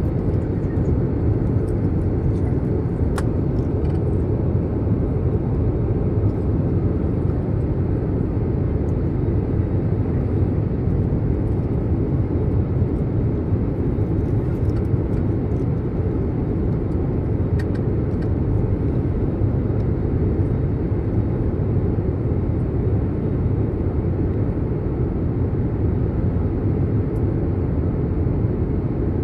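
Steady low rumble inside an airliner cabin in flight: engine and airflow noise carried through the fuselage, unchanging throughout, with a faint click about three seconds in.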